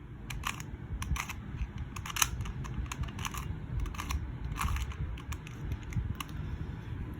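QiYi 2x2 plastic speed cube being turned through an algorithm: an irregular run of clicks and clacks as the layers rotate and snap into place, the loudest about two seconds in.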